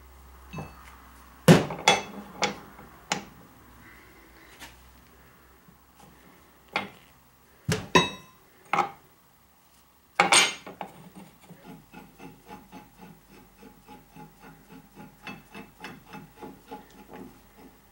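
Steel ball joint press cups and adapters clanking and knocking against a steel lower control arm and new ball joint as they are set in place, about ten separate knocks. Then comes a run of quick, even clicks at about three a second.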